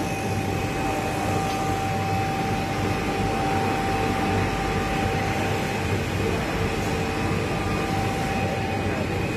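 Richpeace automatic single-head pattern sewing machine running as its head travels and stitches through fabric: a steady mechanical running noise with a high, steady whine.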